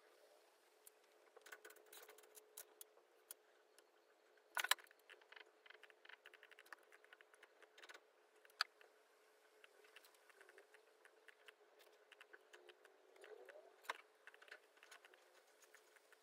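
Faint, irregular clicking and tapping from a laptop's mouse and keyboard being worked, with a louder clatter about four and a half seconds in and a few sharper single clicks later, over a faint steady hum.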